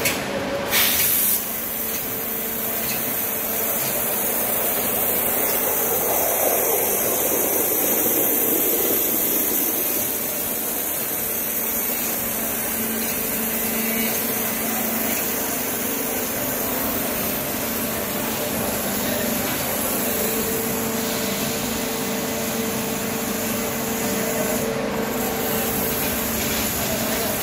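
CNC waterjet cutter's high-pressure jet cutting glass under water in the machine's catch tank: a loud, steady hiss of spray.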